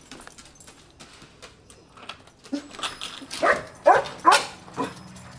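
Dog barking, about five short barks in quick succession starting about halfway in, after a few light clicks.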